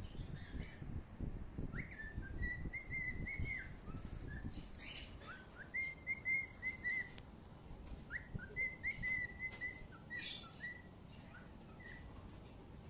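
High whistled notes in short repeated phrases, each starting with a quick upward slide and then held or warbled. A low rumble sits under them for the first few seconds, with a couple of sharp clicks later.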